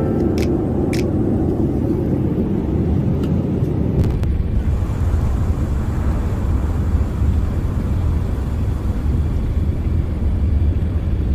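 Jet airliner cabin noise: a steady low rumble of the engines and rushing air heard from inside the cabin on the approach to landing. About four and a half seconds in, a higher hiss of airflow joins the rumble.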